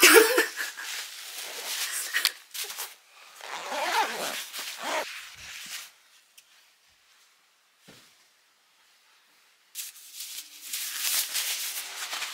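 Rustling of a nonwoven fabric bag and bubble wrap being handled, in bursts over the first five seconds. A few seconds of near quiet follow, then the crinkly nylon shell of a down jacket rustles as it is handled, from about ten seconds in.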